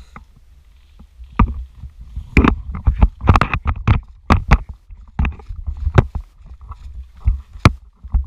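Irregular sharp clicks and knocks, a dozen or so, bunched most closely a few seconds in, over a low rumble of wind on the microphone.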